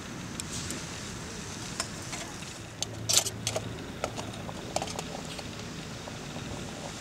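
Light metallic clicks and clinks of a brass burner ring and a titanium cup being handled on a small titanium stove, with a short cluster of louder clinks about three seconds in. Aluminium foil crinkles as it is pressed over the cup.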